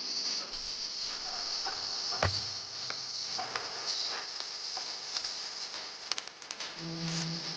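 Steady high chirring of an insect chorus, with scattered light clicks and knocks; one sharper knock comes a little over two seconds in.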